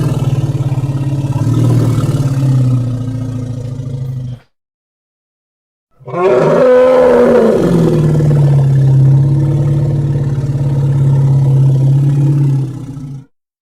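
Dinosaur-style creature roar sound effects made to represent a triceratops. A deep, drawn-out roar ends about four seconds in, followed by a second and a half of dead silence. A second roar then opens with a higher, falling cry and settles into a long, steady low rumble before cutting off near the end.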